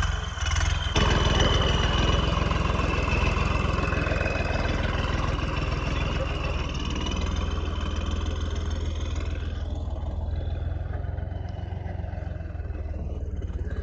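Heavy diesel engine running steadily, growing louder about a second in.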